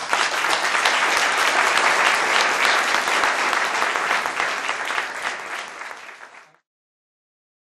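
Audience applauding: dense clapping that starts at once, thins out near the end, then cuts off abruptly.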